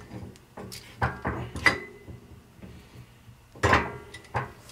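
Steel parts clinking and knocking as a Ford tractor pinion gear with its new bearing is turned over by hand and set on steel press plates: a handful of sharp metallic knocks, one ringing briefly about a second and a half in, the loudest one about three and a half seconds in.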